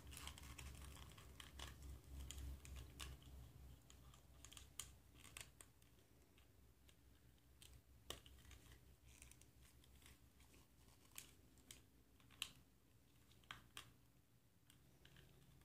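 Near silence with faint, scattered clicks and taps of hard plastic action-figure parts being handled and pushed together, a piece that will not fit.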